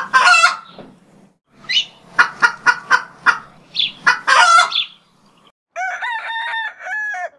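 Chickens clucking in a quick series of short, sharp calls, then a rooster crowing once near the end.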